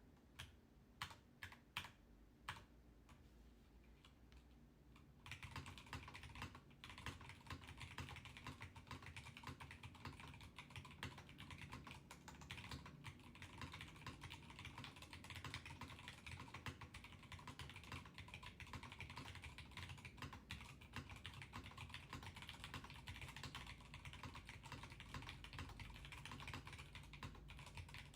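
Typing on a Rama Works Kara mechanical keyboard with Zealios V2 67g tactile switches and GMK Café keycaps. A handful of separate keystrokes come first, then about five seconds in it turns into fast, continuous typing.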